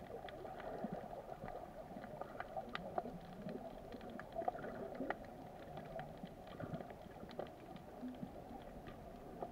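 Underwater ambience heard from below the surface: a steady muffled rush with many small clicks and crackles scattered through it.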